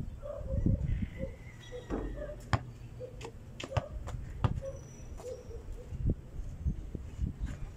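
Basketball bouncing on packed dirt and hitting the hoop: dull thuds with several sharp knocks spread through.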